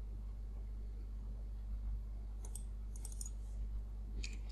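Computer mouse clicking, a single click about halfway through, a quick cluster of clicks a little later, and another near the end, over a steady low electrical hum.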